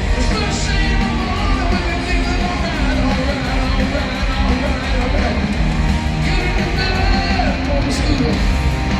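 Live hard rock band playing loud, the electric guitar to the fore, with a singer's voice coming through in places.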